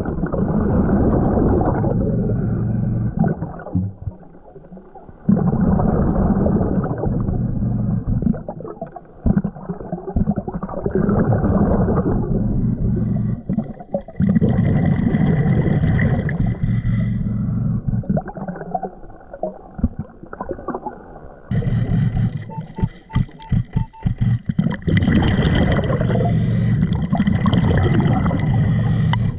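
Scuba diver breathing through a regulator underwater: exhaled bubbles rumble and gurgle in bursts of a few seconds, with quieter gaps while inhaling. A faint steady high tone runs through the second half, with four short beeps about two-thirds of the way in.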